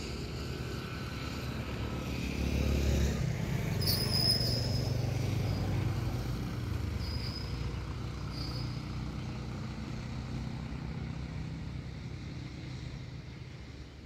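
A motor vehicle's engine running on the road, growing louder about three seconds in and then slowly fading away. A few brief high squeaks are heard along with it.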